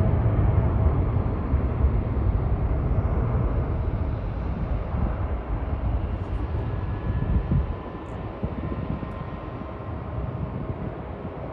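Roar of a Boeing 777-200ER's twin Rolls-Royce Trent 892 engines at takeoff thrust, fading steadily as the jet climbs away.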